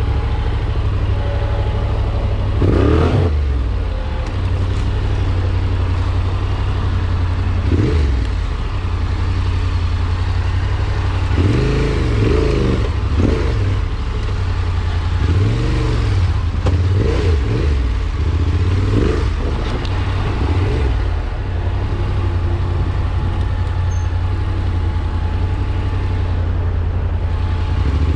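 An engine running with a steady low drone, revved up and back down briefly about ten times.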